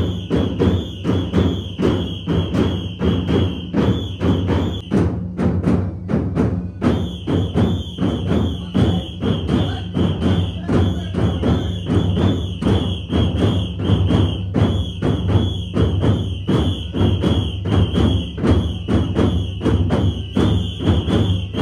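Drums beating a fast, even rhythm of about four beats a second, the drumming of a Romanian bear dance, with a high steady tone over it that breaks off for about two seconds near the middle.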